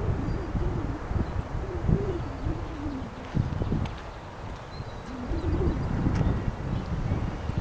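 Gusty storm wind buffeting the microphone with a low rumble that swells and eases, and a wavering tone that rises and falls as the wind howls.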